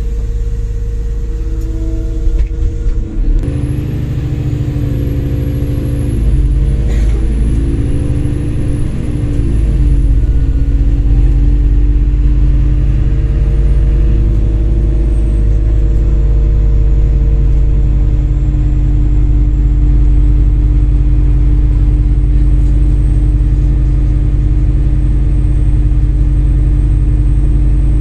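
A MAZ-203 city bus heard from inside the passenger cabin, its engine rumbling as it pulls away from a stop, with a few knocks about two seconds in. The engine note shifts in pitch over the next several seconds, then runs louder and steady at driving speed, with a faint high whine that slowly falls.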